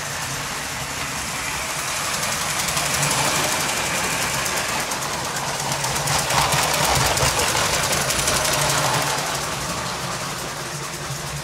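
Lego toy electric trains running on plastic track: a steady motor hum with rolling wheel noise that swells in the middle as a train passes close by.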